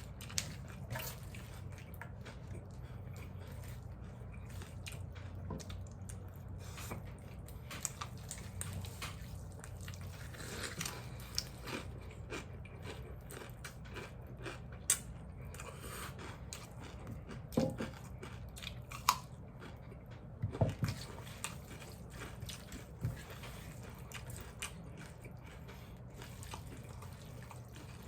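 People eating noodles: chewing and biting with scattered short clicks and taps over a steady low hum, the sharpest clicks a little past halfway.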